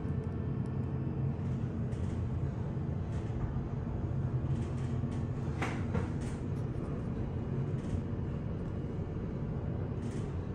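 Steady low rumble of a passenger elevator car travelling upward, with a few faint clicks, the clearest just past the middle.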